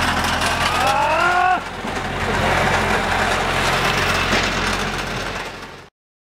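A steady low engine hum under a constant bed of noise as a car is pushed by hand, with one short rising voice-like call about a second in. The sound cuts off abruptly near the end.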